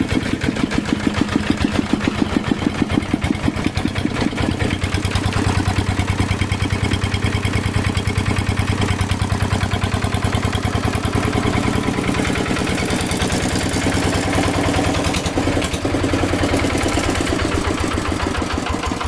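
Kubota Quick Boxer 1000 diesel tractor engine running steadily at idle, a fast, even beat of firing strokes.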